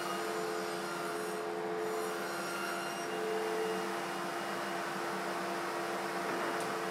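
Table saw running with no wood in the cut: a steady motor hum with a light hiss.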